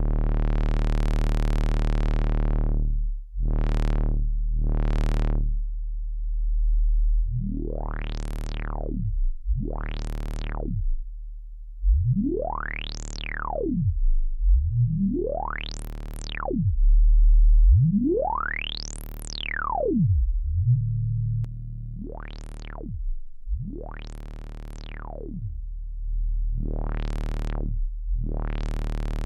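System 80 860 VCF, a Eurorack copy of the Roland Jupiter-6 multi-mode filter, sweeping its cutoff up and down over a low sustained synth drone, about ten times, some sweeps quick and some slower. On the middle sweeps the resonance rings as a whistling peak that rises and falls with the cutoff.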